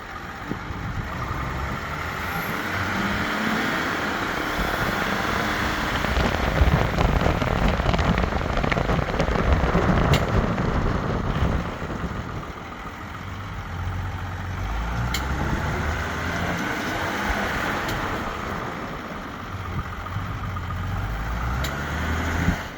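A 2023 GMC Sierra with the 3.0L diesel driving, its running noise swelling and easing. A handful of sharp, irregular ticks cut through it, like a tin piece of metal getting whacked, from under the truck near the driver's seat; the cause is unknown.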